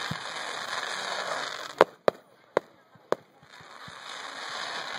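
Aerial fireworks: a steady hiss, then one sharp, loud bang just under two seconds in and three fainter pops after it. The hiss builds again near the end.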